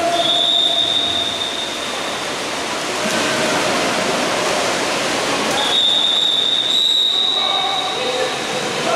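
A whistle blown in two long, steady, high-pitched blasts of about two seconds each, the second beginning around five and a half seconds in, over steady background noise.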